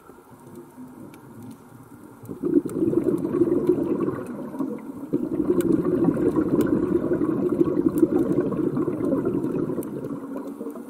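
Scuba regulator exhaust bubbles rushing and gurgling underwater, starting about two seconds in and easing off near the end, with a brief dip midway. Faint sharp clicks are scattered throughout.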